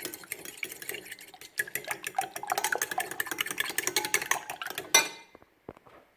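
Eggs and milk being beaten in a bowl: rapid clinking of a utensil against the bowl, ending about five seconds in with one sharper knock.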